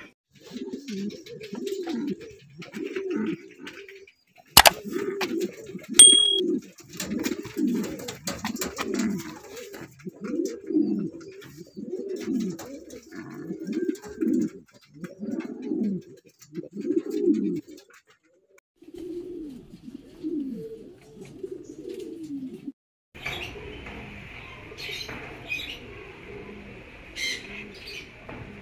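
Domestic pigeons cooing, a low coo repeated about once a second, with a sharp click about four and a half seconds in. Near the end the cooing stops and a steady high hiss with a few short chirps takes over.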